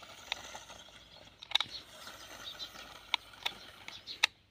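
About five sharp clicks, scattered irregularly over a faint, steady outdoor background.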